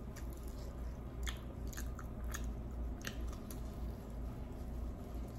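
A person biting into and chewing a hard, thick fried flatbread stuffed with potato (an aloo paratha made as a puri), close to the microphone, with several sharp crunching clicks from about a second in. A steady low hum runs underneath.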